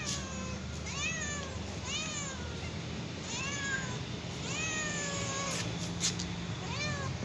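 Kitten meowing repeatedly, about six meows that each rise and fall in pitch, one of them long and drawn out about halfway through. A short sharp click just after the sixth second.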